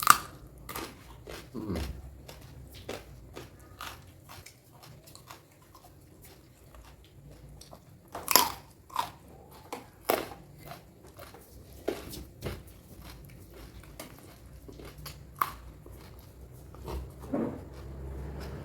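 Close-up eating sounds: bites and crunchy chewing of mouthfuls of food, a run of irregular crunches with several louder bites.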